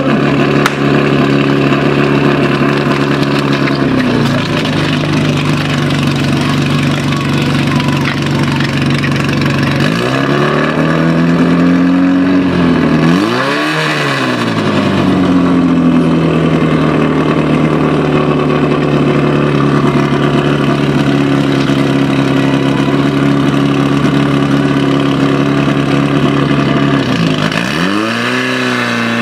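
Portable fire pump's engine running steadily under load as it pumps water into the hose lines. Its pitch drops about four seconds in, swings down and then revs up to a peak around halfway before settling back, and dips and climbs again near the end as the operator works the pump's controls.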